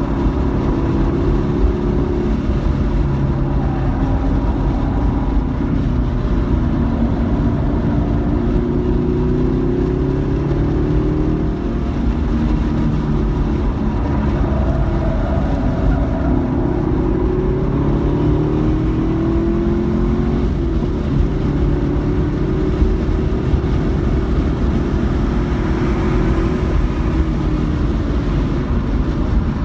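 Car engine and road noise heard from inside the cabin at track speed, the engine's pitch climbing and falling as the car accelerates and slows.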